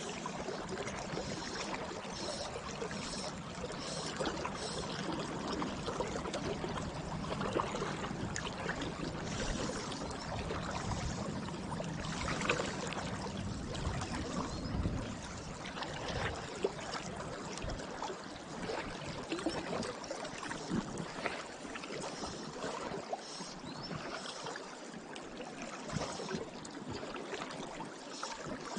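Steady rush of river water flowing around the angler, with small ticks and rustles scattered through it.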